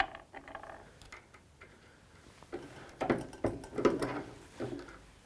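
Light clicks and clatter of brass rifle cases being handled at a reloading press bench during case sizing, with a cluster of sharper clicks about three to four seconds in.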